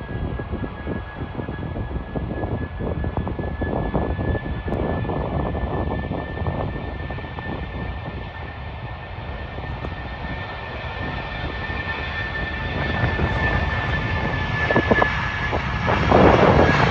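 Airbus A320ceo jet engines at takeoff power during the takeoff roll: a steady high whine over a deep rumble. The sound grows louder as the airliner comes down the runway, and is loudest near the end.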